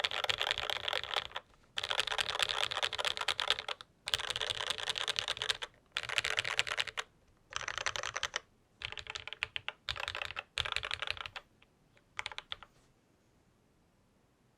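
Typing on a Novelkeys NK87 aluminium mechanical keyboard with linear franken switches (Akko Jelly Black stems in Cherry MX Black Hyperglide housings) and GMK keycaps. It is a fast run of keystrokes in about nine bursts separated by short pauses, and the typing stops about 13 seconds in.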